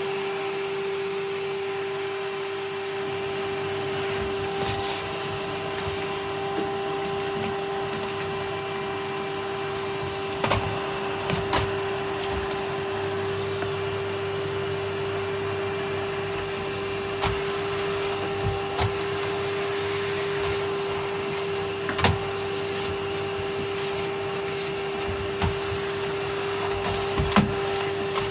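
Vacuum cleaner running steadily with a constant whine, with a few sharp knocks scattered through.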